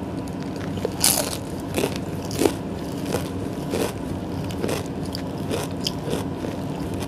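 Close-miked chewing of a crusty sauce-topped bread pastry: a string of crisp crackles and mouth clicks, the three loudest in the first two and a half seconds, over a steady low hum.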